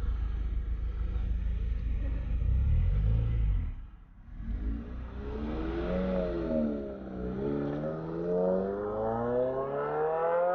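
Car engine rumbling low, then accelerating: its pitch climbs, drops at a gear change about seven seconds in, and climbs again.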